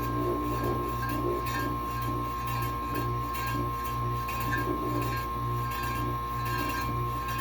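Kenmore dehumidifier compressor running steadily: a low hum that pulses about twice a second over a steady high tone, with light metallic clinking.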